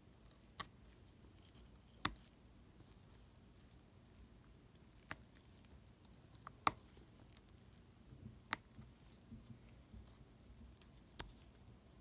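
Small circuit board handled and turned over in nitrile-gloved fingers: a handful of sharp clicks and taps at irregular intervals, with lighter ticks between them.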